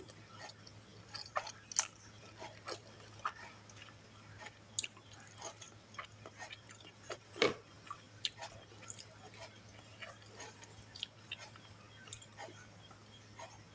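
Close-miked eating sounds: a person chewing and biting fried instant noodles with chillies. There are irregular wet clicks and mouth smacks, a few each second, with one louder click about seven and a half seconds in.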